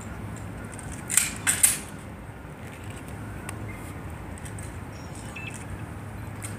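Two sharp metallic clacks about half a second apart, from a Tomb Guard's rifle being handled during the rifle inspection.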